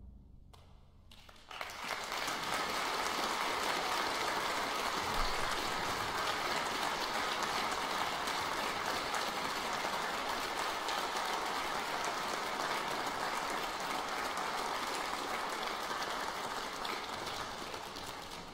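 Audience applauding: after a brief hush, the clapping starts about a second and a half in, holds steady, and thins toward the end.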